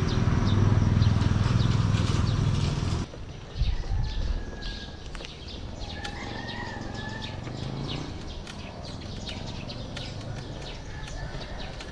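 A loud low rumble that cuts off abruptly about three seconds in, followed by birds chirping, with many short high chirps and a brief call about halfway through.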